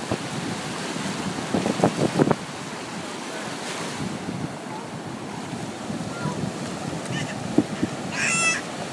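Ocean surf washing steadily onto a shallow beach, with a brief voice about two seconds in and a short high-pitched cry near the end.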